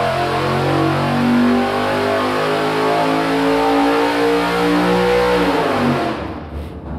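Cammed GM 4.8-litre LS V8 (Gen IV Vortec truck engine) running a full-throttle dyno pull near 6,800 rpm. About five and a half seconds in the throttle closes and the revs fall away.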